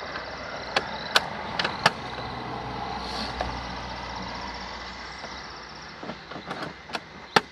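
Sharp plastic clicks and knocks from a Greenworks 60V cordless lawn mower being readied for bagging, its motor not running. A car drives past around the middle.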